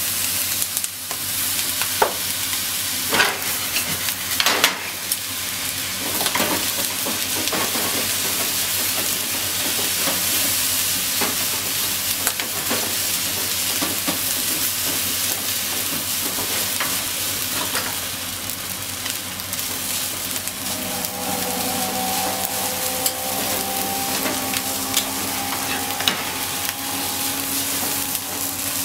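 Corn fried rice sizzling in a hot frying pan as it is stirred and turned with a wooden spatula, with a steady frying hiss and the scrape of rice and spatula in the pan. A few sharp knocks come about two to five seconds in.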